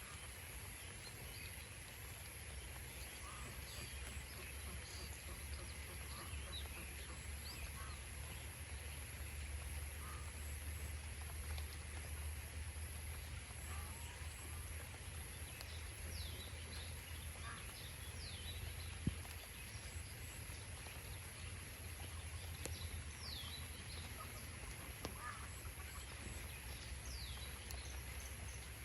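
Domestic ducks resting in steady rain: a continuous hiss of rainfall with a low rumble underneath, broken by a few scattered short calls and chirps.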